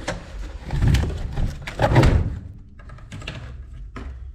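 Unpacking heavy steel tubing-roller dies from their box: packing material rustling and a couple of dull thunks, the loudest about one and two seconds in.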